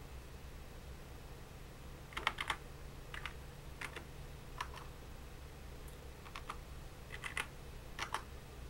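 Keystrokes on a computer keyboard: several short clusters of taps starting about two seconds in, as a username and then a password are typed at a login prompt, over a faint steady low hum.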